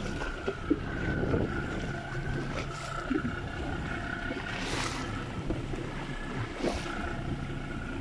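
Boat engine running steadily, with wind on the microphone and two brief rushes of noise about five and seven seconds in.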